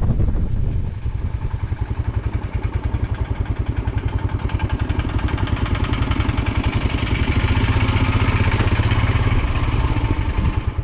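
Royal Enfield Himalayan's 411 cc single-cylinder engine running under way at low-to-moderate revs, its firing pulses coming in a steady rapid beat. It gets a little louder and brighter about two-thirds of the way in.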